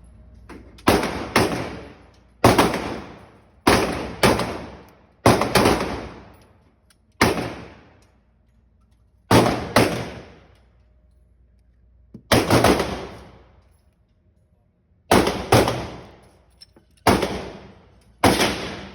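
Glock 43 9mm pistol firing about sixteen shots, often in quick pairs about half a second apart, with pauses of one to three seconds between them; each shot rings out for about a second.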